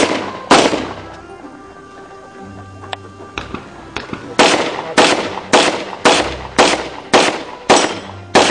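Handgun shots on a practical shooting stage, each fading off in echo: two shots at the start, a pause of about four seconds, then a steady string of about eight shots a little over half a second apart.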